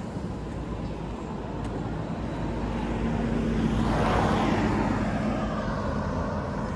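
Pickup truck driving past on a wet road: engine and tyre noise swell to a peak about four seconds in, then fade away.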